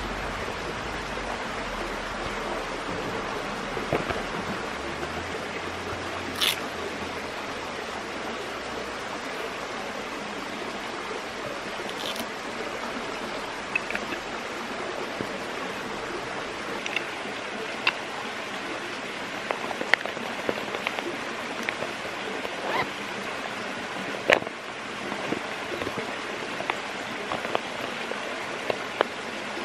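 Steady rush of a flowing stream, with scattered light clicks and taps as small objects (a wooden incense holder, a plastic pouch) are handled and set down on rock.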